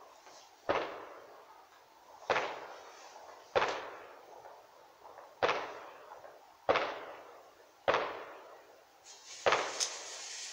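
Fireworks going off: seven sharp bangs, one every one to two seconds, each with a long echoing tail.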